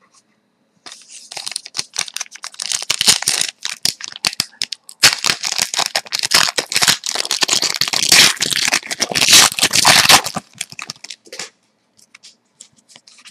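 Foil wrapper of a Score hockey card pack crinkling and tearing as it is handled and ripped open, a dense rustle that pauses briefly about four and a half seconds in and stops about ten seconds in.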